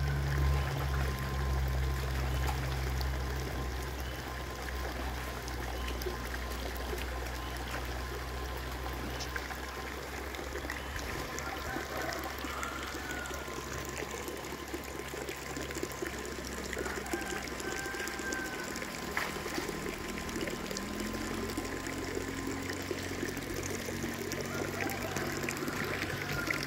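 Shallow muddy water trickling and sloshing as a hand net is swept and scooped through a draining fish pond, with a low steady hum that fades out about halfway through.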